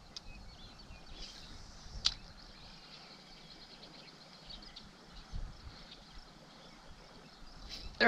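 Quiet outdoor ambience with faint, high bird chirps scattered through it, and a single sharp click about two seconds in.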